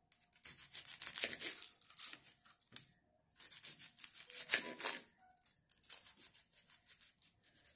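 Dry onion skin being peeled off a whole onion with a small kitchen knife: quick, crackly tearing and rustling of papery skin in three stretches with short pauses between.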